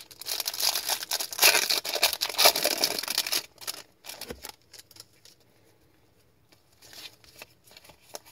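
Foil wrapper of an Upper Deck MVP hockey card pack being torn open and crinkled, loudest over the first three and a half seconds. After that come scattered soft clicks and rustles as the cards are slid out and sorted.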